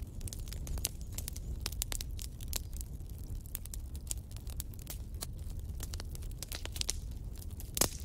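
Wood fire in a fireplace crackling: irregular sharp pops and snaps over a low steady rumble, with one louder pop near the end.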